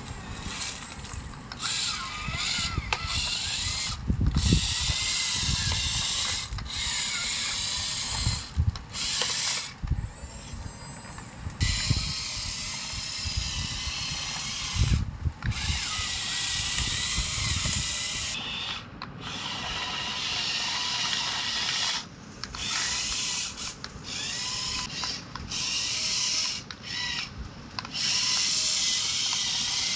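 Small electric motors and gearboxes of a remote-control JCB excavator toy whirring, stopping and starting again many times, each run lasting from about a second to several seconds, with a few low thumps in between.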